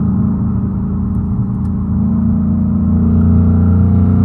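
2019 Ford Mustang Bullitt's 5.0-litre V8 pulling under load in fourth gear, heard from inside the cabin, its note getting louder about two seconds in.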